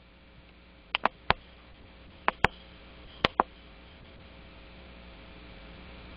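Seven sharp clicks, mostly in quick pairs, between about one and three and a half seconds in, over the steady hiss and low hum of a conference-call line.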